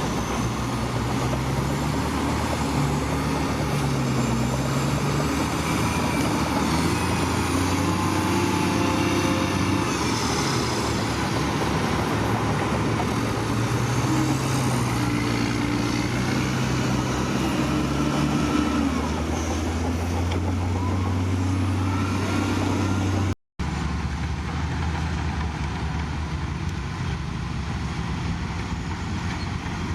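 Heavy diesel engine of earthmoving machinery running, its revs rising and falling as it works. It breaks off for a split second about three quarters of the way through, and a steadier engine drone follows.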